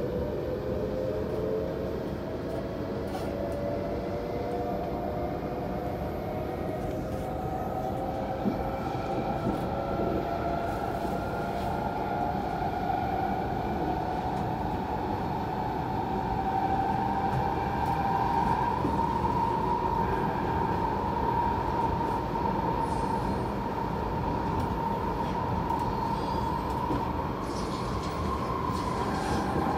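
Kawasaki C751B metro train heard from inside the carriage as it accelerates away from a station. The traction motor whine rises steadily in pitch over a continuous running rumble, then levels off and holds at cruising speed.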